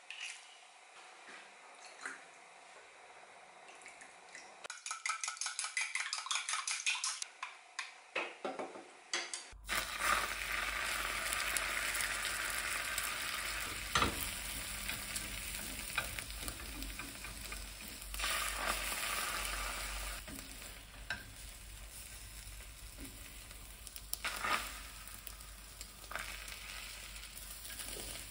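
Eggs cracked into a small steel bowl and beaten with quick, even strokes. From about ten seconds in, beaten egg sizzles in a rectangular tamagoyaki pan over a gas flame, with chopsticks clicking and scraping against the pan.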